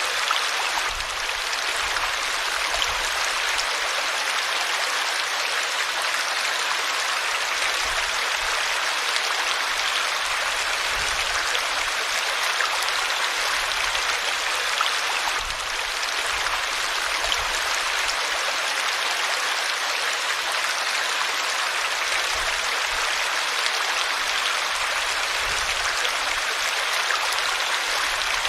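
River water flowing steadily over rocks, a continuous even rush of white-water noise without a break.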